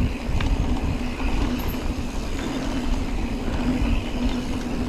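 Wind buffeting the action camera's microphone and knobby Maxxis tyres rolling fast over a dirt singletrack on a Giant Trance 3 full-suspension mountain bike: a steady, rumbling noise with a few faint clicks from the bike.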